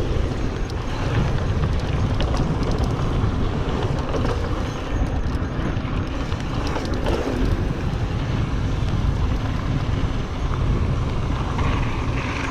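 Wind buffeting the action-camera microphone over the rumble of a 2021 Giant Trance X mountain bike's knobby tyres rolling on a dirt trail, with small rattles and clicks from the bike.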